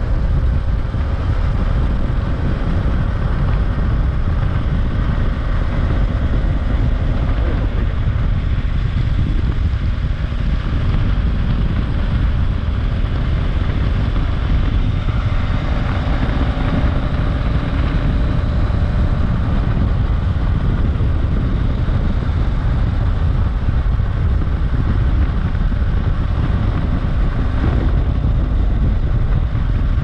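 BMW F800GS parallel-twin engine, on its original stock exhaust, running steadily under way as the motorcycle is ridden.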